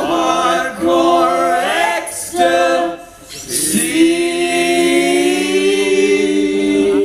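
Group of voices singing in harmony, largely unaccompanied: a few short phrases, a brief break about three seconds in, then one long held chord.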